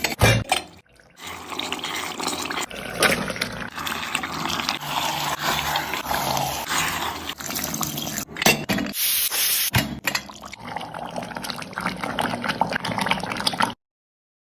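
Water pouring into a pot of chicken curry, with the liquid splashing and bubbling and many small clicks and pops, broken by short cuts; the sound stops abruptly near the end.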